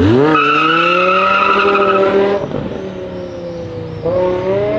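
BMW E60 M5's V10 engine revving hard: a sharp climb to high revs that holds, rising slowly, for about two seconds, then drops away. A second pull with rising pitch starts about four seconds in.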